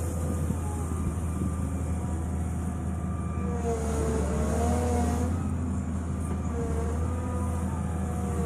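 Volvo EW160 wheeled excavator's diesel engine running steadily while the arm swings its ditch-mowing bucket. A whine over the engine drone wavers in pitch, and a hiss swells briefly around the middle.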